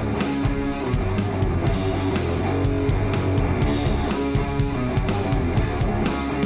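Background rock music with electric guitar and a steady driving beat.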